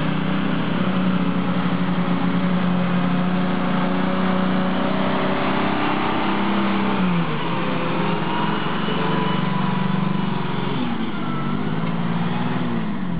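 Mercedes-Benz Unimog truck engine running as the truck drives slowly over a rough dirt track. The engine note is steady, then the revs fall about seven seconds in and again near the end.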